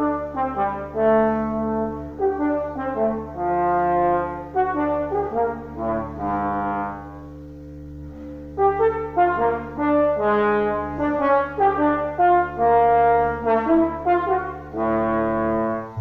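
Slide trombone playing a melody of separate notes in two phrases, with a short break near the middle, over a double bass bowing long low notes. Near the end the trombone stops and the bowed bass comes forward.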